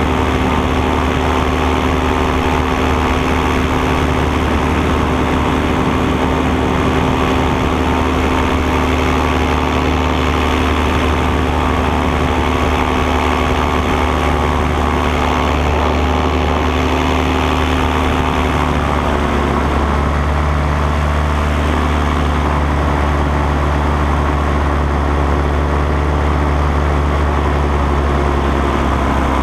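Paramotor engine and propeller running steadily in flight. The engine note drops in pitch about 19 seconds in and holds there.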